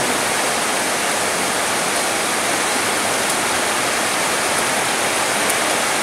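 Heavy rain falling steadily on palm trees and foliage, an even hiss with no breaks.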